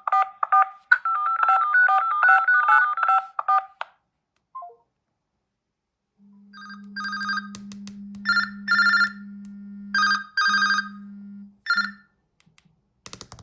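Smartphone touch-tone keypad beeps, rapid paired tones, as a number is dialed for about four seconds. After a pause of about two seconds, an incoming-call ringtone plays in short melodic bursts over a steady low hum. A few clicks come at the very end.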